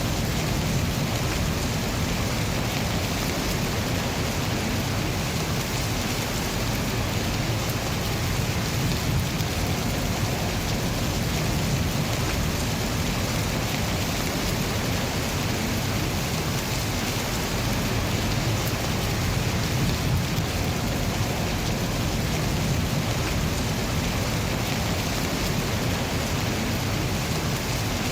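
Steady rain falling: an even, unbroken hiss with a low rumble underneath, unchanging throughout.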